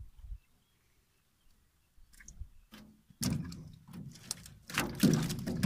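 Knocks, scrapes and rattles of a wire-mesh fish trap being handled and hauled against the side of a boat, starting about three seconds in after a near-silent pause.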